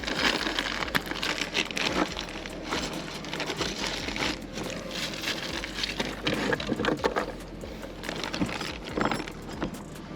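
Irregular clicking, scraping and rattling of metal parts being handled while the truck bed rail and its mounting hardware are worked on.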